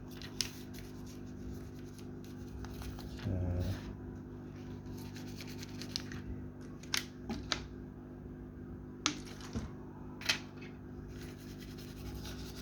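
Light scraping and a few sharp clicks of a thin tool working at a smartphone's screen edge to pry it off, over a steady low hum.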